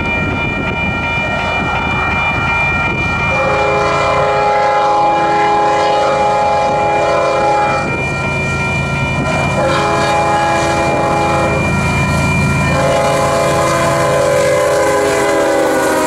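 Union Pacific GE C45ACCTE diesel locomotive blowing its multi-note air horn in three long blasts, the first starting about three seconds in and the last two close together, over the steady rumble of the approaching train.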